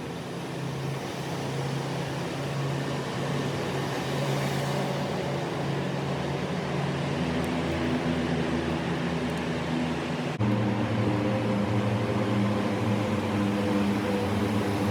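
Steady mechanical drone with low humming tones, echoing inside a road tunnel; about ten seconds in it jumps suddenly to louder, slightly different tones.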